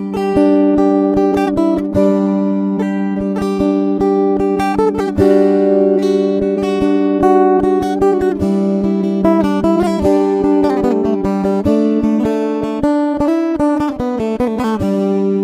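Background music: acoustic guitar picking and strumming a steady run of chords.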